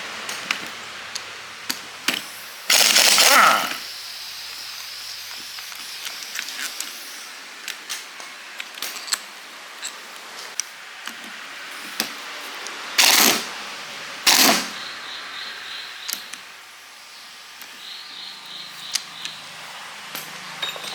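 Hand tools and metal parts being handled: scattered clicks, clinks and light knocks, with three short bursts of loud hissing noise, the first about three seconds in and two more close together near the middle.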